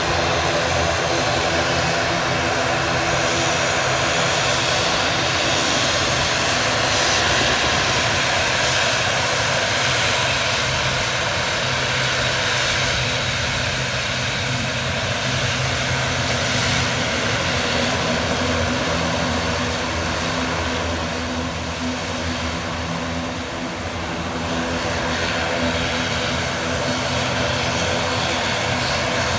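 Twin turboprop engines of an ATR 42-500 (Pratt & Whitney Canada PW127-series driving six-blade propellers) running steadily as the aircraft moves along the runway, a low propeller drone over a broad rushing noise.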